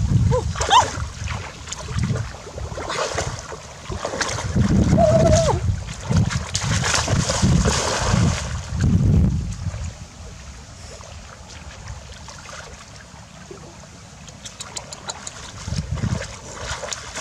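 Splashing and sloshing of shallow muddy paddy water as a person lunges through it, groping for fish by hand. It turns quieter about ten seconds in.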